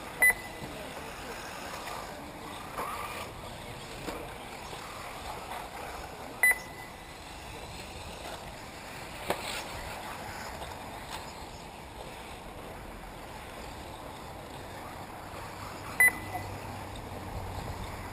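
Three short, high electronic beeps of one steady pitch, the first right at the start, the next about six seconds later and the last about ten seconds after that, over steady outdoor background noise. They are typical of an RC race's lap-timing system beeping as a buggy crosses the timing loop. A single sharp click comes about nine seconds in.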